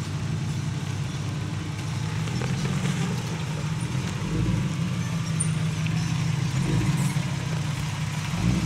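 Toyota 4Runner engine running steadily at low revs while crawling down a rocky trail, with a few low thumps.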